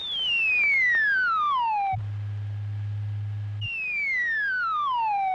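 Old science-fiction film sound effect for a lift car descending a deep shaft: a whistling tone slides steadily down in pitch for about two seconds, a low steady hum takes over for a moment, then a second falling whistle starts and keeps sinking lower.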